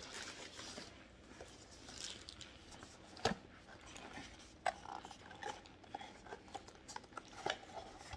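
Faint handling of an opened cardboard box and a metal spoon: papery rustling, a sharp click a little over three seconds in, another near the middle, then a string of small clicks and taps.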